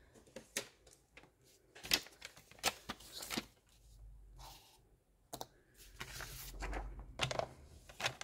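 Handling sounds of a paper trimmer being fetched and put in place on a craft mat: scattered clicks, taps and light knocks, the sharpest about two seconds in, then a longer low rustling slide around six to seven seconds.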